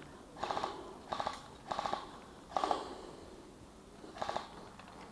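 Airsoft electric gun firing five short bursts of rapid shots, each burst a quick rattle of clicks lasting about a quarter second, spaced irregularly about half a second to a second and a half apart.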